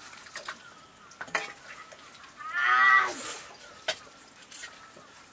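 A short pitched animal call, rising then falling, about two and a half seconds in, over scattered clicks and light knocks of cooking utensils.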